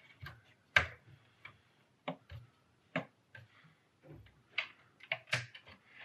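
A handful of sharp clicks and knocks, the loudest about a second in, as a RAM stick (DIMM) is worked into its motherboard slot and handled against the metal chassis.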